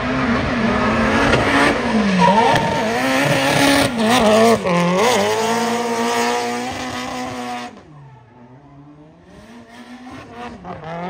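Drift car's engine revving hard, its pitch repeatedly dipping and climbing as it is held sideways, over a continuous hiss of tyre squeal. About three-quarters of the way through the sound drops suddenly to a quieter, duller engine note that swells again near the end.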